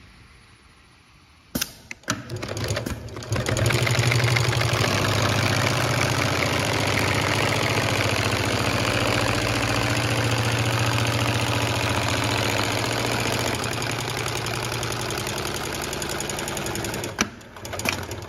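Automatic awning sewing machine with a Dürkopp Adler M-Type industrial sewing head. It starts with a click, runs up over a second or two to a steady fast stitching run while it sews a long seam joining two fabric strips, then stops near the end with a few sharp clicks.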